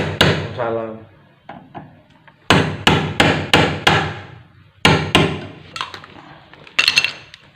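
Hammer blows in quick runs, each a sharp strike with a brief ring. There is a run of about six strikes at roughly three a second, then a few more strikes later on.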